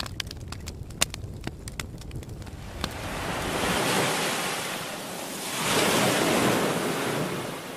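Waves rushing in, in two long swells: the first builds about three seconds in, and a louder one follows about a second later and then fades. Before them there is a low rumble with a few sharp clicks.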